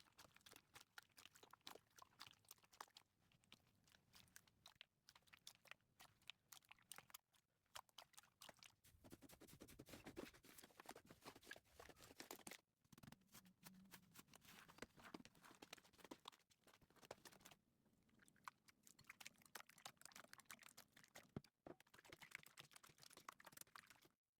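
Hands squeezing and pressing slime: faint, dense crackling and small pops, broken by a few short pauses.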